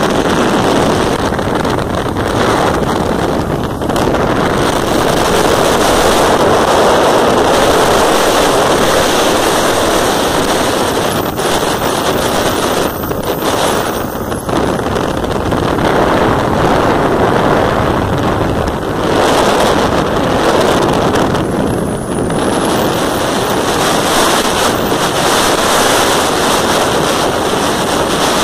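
Riding noise from a motorcycle at road speed: a loud, steady rush of wind over the phone's microphone with the bike's running noise mixed in, dipping briefly a few times.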